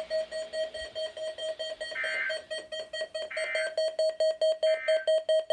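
The weather radio's end-of-message code: three short, warbling digital data bursts about a second apart, marking the end of the weekly test. Under them runs a steady electronic beeping, about five beeps a second, which grows louder near the end.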